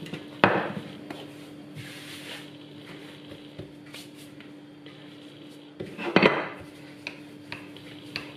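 Wooden rolling pin knocking against a countertop twice, about half a second in and again about six seconds in. Between the knocks are soft rubbing and light taps of hands working floured yeast dough, over a faint steady hum.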